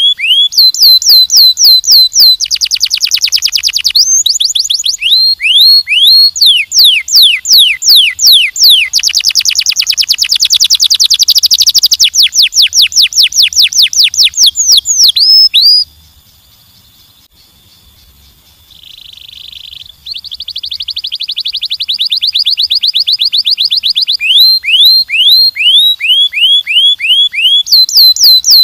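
Domestic canary singing loudly in long tours: runs of quick, evenly repeated falling whistled notes alternating with very fast trills. It breaks off for about three seconds a little past the middle, then resumes.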